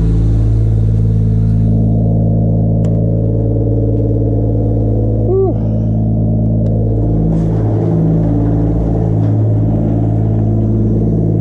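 Turbocharged Toyota 2JZ straight-six engine in a Nissan 240SX running at a steady speed, its hum holding one even pitch. A brief rising-and-falling pitched sound about five seconds in.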